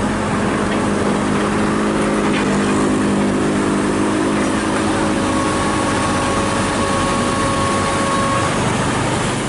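Komatsu hydraulic excavator's diesel engine running steadily. A faint steady whine comes in about halfway through and stops near the end.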